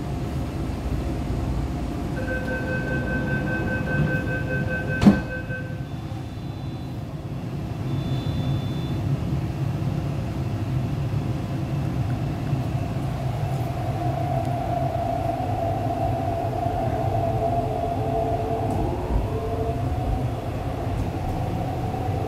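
On an MTR East Rail Line R-Train, the door-closing warning beeps for about three seconds and ends in a sharp knock as the doors shut about five seconds in. From about thirteen seconds the traction motors set up a steady whine as the train pulls away.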